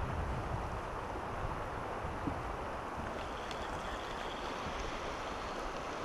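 Steady rush of a fast, shallow river current around a boat, with wind rumbling on the microphone.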